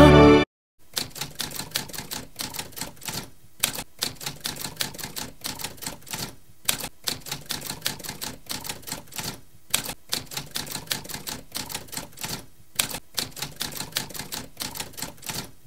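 Typewriter keys striking in quick, irregular runs, with short pauses every few seconds. A moment of music cuts off just before the typing starts.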